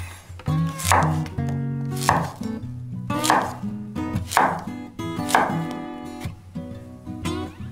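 Chef's knife slicing through a young squash and hitting an end-grain wooden cutting board: about five even cuts, a little over a second apart. Plucked acoustic guitar music plays underneath.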